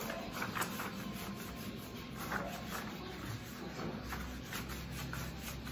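A board duster rubbing across a whiteboard in repeated wiping strokes, erasing marker writing.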